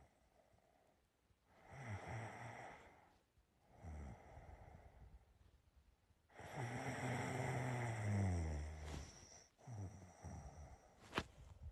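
A person snoring in sleep: two short snores in the first few seconds, then a long, louder snore about six seconds in, and a shorter one after it. A single sharp click near the end.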